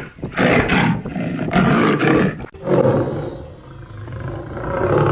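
A large wild cat roaring: several loud calls in quick succession, then after a sudden break a softer, drawn-out call that swells near the end.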